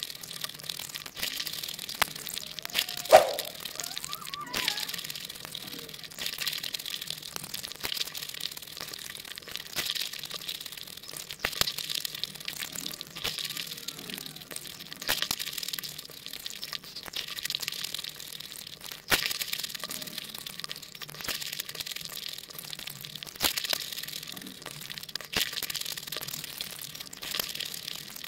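Close-miked crunching of crisp hollow puri shells being bitten and chewed while eating pani puri. The crunching comes as a steady run of sharp cracks, with one louder pop about three seconds in.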